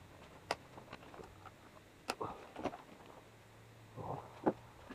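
A handful of light, scattered clicks and knocks from hands working at the front of a dirt bike, over otherwise quiet room sound.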